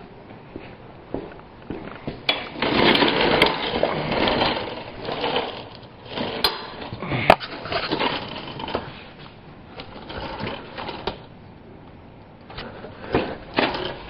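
Clattering and scraping of metal tools and a mechanic's creeper being moved over the floor, with a few sharp metallic clinks.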